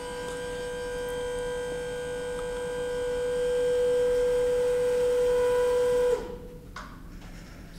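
Electric walk-behind pallet stacker's hydraulic pump motor running with a steady whine that grows louder, then cuts off suddenly about six seconds in.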